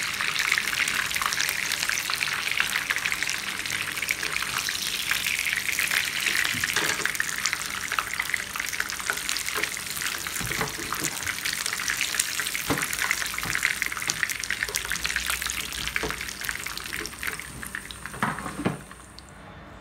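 Breaded chicken nuggets sizzling and crackling in hot oil in a frying pan, with a few knocks of a slotted spoon against the pan as pieces are lifted out. The sizzling cuts off near the end.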